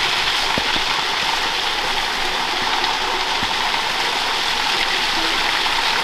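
Small waterfall spilling over a rock ledge into a pool: a steady rush of falling water.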